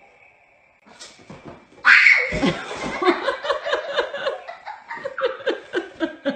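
A girl laughing hard: a sudden loud cry of laughter about two seconds in, then a long run of rapid, repeated laughs that fade near the end.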